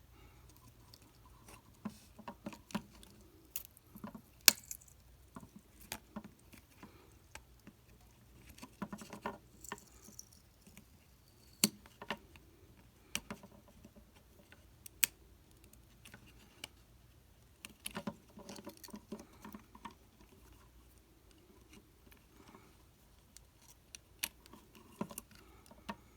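Irregular small clicks, taps and short scrapes of plastic walkie-talkie parts being handled and pried apart during a repair, with a few sharper clicks spread through.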